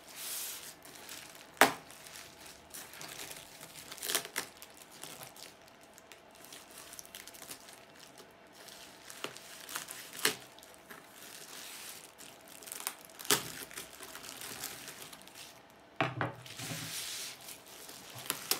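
Plastic bubble wrap crinkling and tearing as it is cut open with a knife and pulled back by hand, with a few sharp clicks along the way, the loudest about a second and a half in. The crinkling grows louder near the end as the wrap is peeled open.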